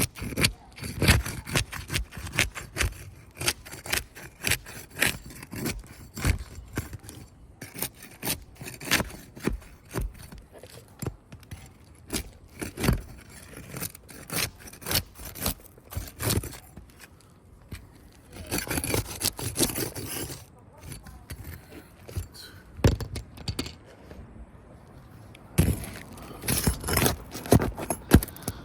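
Asphalt shingles being pried loose from their sealant strips: irregular sharp clicks and knocks from the tool against the shingles, with stretches of scraping and crackling as the sealed tabs tear free, twice for a couple of seconds in the second half.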